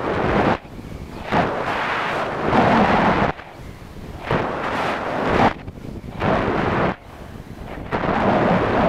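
Wind rushing over the microphone of an RC plane's onboard camera in flight, surging and dropping in uneven gusts about once a second.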